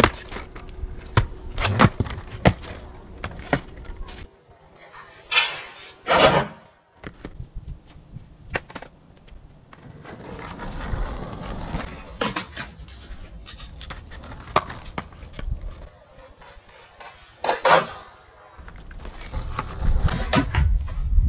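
Skateboard wheels rumbling over rough asphalt, broken by sharp wooden clacks of the board hitting the ground. The loudest clacks come about five and six seconds in and again about three-quarters of the way through.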